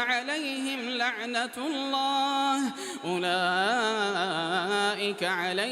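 A man reciting the Quran in melodic tajwid style, drawing out long vowels with ornamented pitch turns, with a short break for breath about three seconds in.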